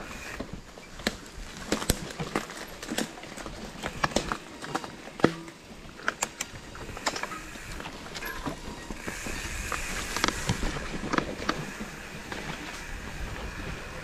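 Mountain bike rattling over a rough dirt trail: irregular sharp clicks and knocks from the frame and drivetrain over a steady rush of riding noise.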